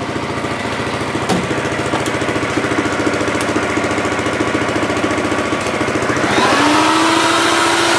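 Gas-engine-driven Craftsman air compressor running steadily with an even pulsing beat. About six seconds in, a loud hiss of air and a rising tone that then holds steady join in. There are a few light knocks early on.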